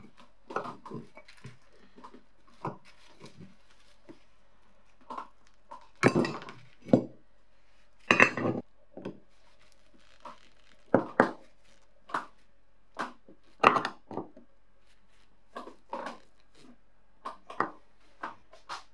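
Flat screwdriver and steel parts of an antique cast-iron clothes iron clinking and scraping as rusted screws are worked loose from its handle bracket and base plate, in irregular sharp knocks with a few louder scrapes.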